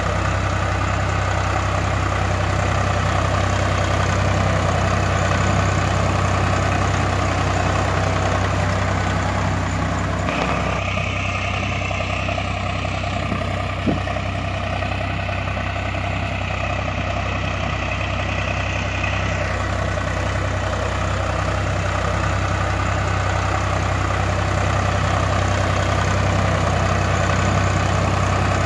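Tractor engine running steadily with an even low throb. Its tone changes slightly about ten seconds in, and there is one short click about fourteen seconds in.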